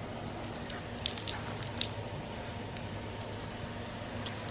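Wet cloth towel being wrung out by hand, water squishing out and spattering in a few short drips and splashes, over a steady low hum.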